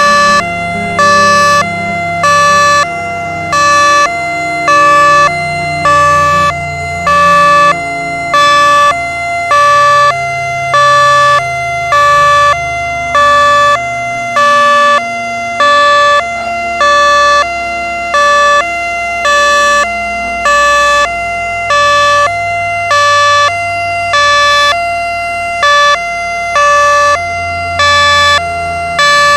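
Siren sounding a hi-lo two-tone pattern: a higher and a lower tone alternate evenly, switching about twice a second, steady and loud.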